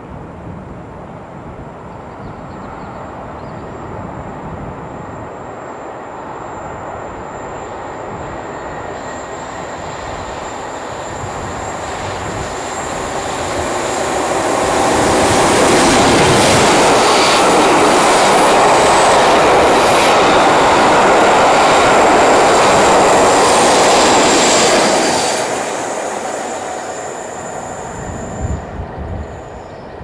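A pair of English Electric Class 50 diesel locomotives passing through at speed with their train. It builds over about ten seconds as it approaches, is loud for about ten seconds as it goes by, then drops away sharply and fades as it leaves.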